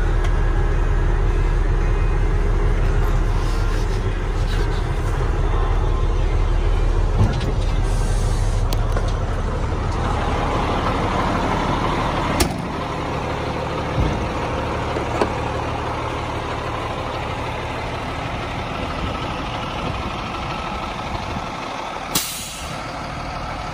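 Heavy diesel engine of a 2000 International 9200i dump truck idling steadily, with a few sharp knocks about halfway through and a short hiss near the end.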